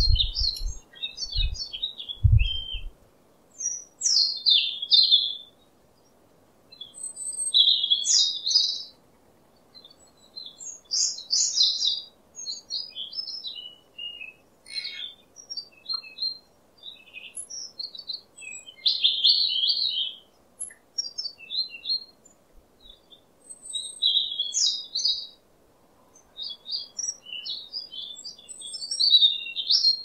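Songbirds singing in short, high phrases of a second or two, repeated every few seconds with brief pauses between. A few low thumps in the first three seconds.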